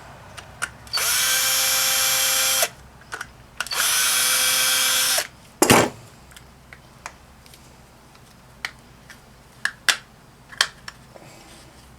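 Power drill spinning in two steady bursts of about a second and a half each, driving screws out of a pump housing. A sharp knock follows about halfway through, then scattered light clicks.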